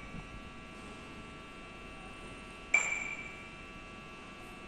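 A single bright, bell-like ping about three seconds in, ringing and fading over about a second, over a steady electrical hum.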